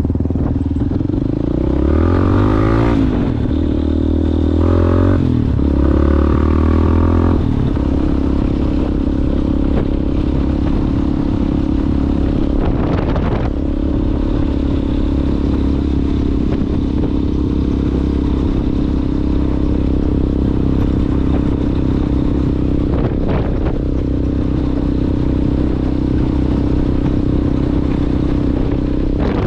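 Yamaha Ténéré motorcycle engine through an aftermarket Coyote exhaust, revving up and down several times in the first seven seconds or so, then running at steady throttle. A few sharp clattering knocks come through, the clearest about halfway through and again later.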